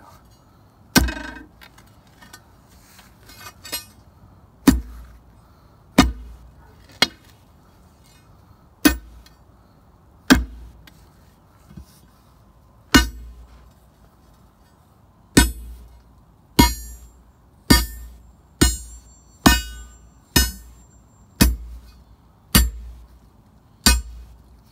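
Steel digging bar being driven again and again into hard-packed soil and stones, about eighteen sharp strikes. They come unevenly at first and then about once a second, several with a high metallic ring.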